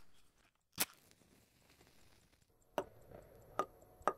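Faint room hiss broken by a few sharp clicks or taps: one about a second in, then three more in the last second and a half, less than a second apart.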